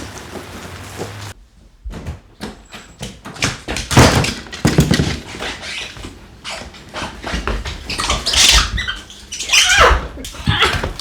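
A dog whimpering and yelping in several short, loud cries that bend in pitch, with scattered clicks between them.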